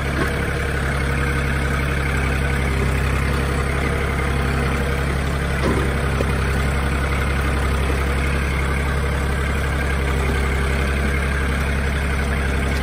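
Kubota L4018 tractor's diesel engine running steadily under load as the tractor creeps up a very steep, rocky slope, heard from the driver's seat.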